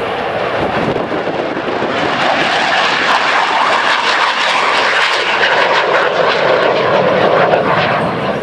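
Lockheed Martin F-16 fighter jet flying past, its single jet engine a loud rushing noise that swells from about two seconds in and is loudest near the end.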